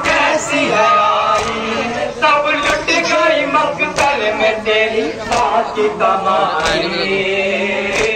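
A group of men chanting a nauha, a Muharram lament, with sharp strikes of hands beating on chests in matam at an uneven beat of about one to two a second.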